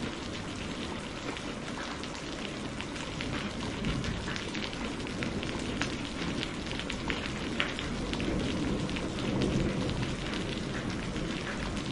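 Heavy rain falling steadily, a dense even hiss with many separate drops ticking close by.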